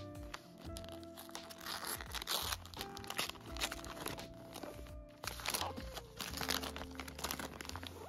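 Paper wrapping being torn open and crinkled in repeated bursts as a wrapped book is unwrapped, over soft background music.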